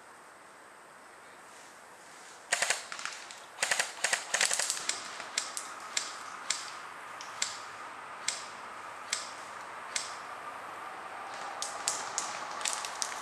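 Airsoft guns firing. Near-quiet at first, then a few rapid bursts of sharp snaps a couple of seconds in, followed by single shots about every half second to a second.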